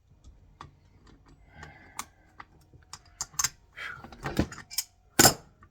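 Irregular sharp clicks and knocks of a hand tool working at tight metal bolts on a large electrical plug, with one loudest knock near the end.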